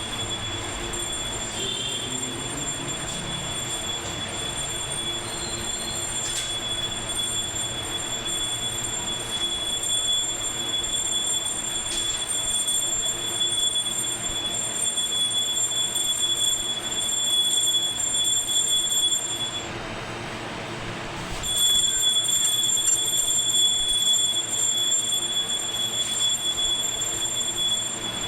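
A machine running with a steady high-pitched whine over a hiss. It stops for about two seconds past the middle, then starts again.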